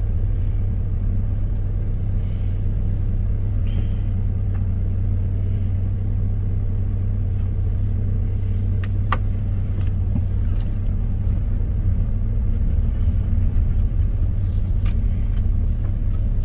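A steady low rumble with a few faint clicks about nine seconds in.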